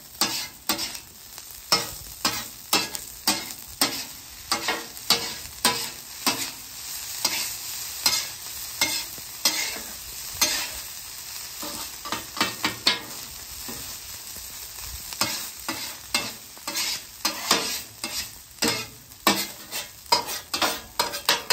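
Metal griddle spatulas scraping, chopping and pushing fried rice across a hot flat-top griddle in a quick, irregular run of strokes, over the steady sizzle of the rice frying in garlic butter.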